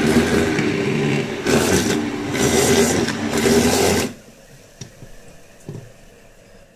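Electric hand (immersion) blender running submerged in a pot of boiled lentils and vegetables, crushing them smooth for sambar; its motor hum dips briefly a couple of times, then it switches off abruptly about four seconds in, followed by a few faint knocks.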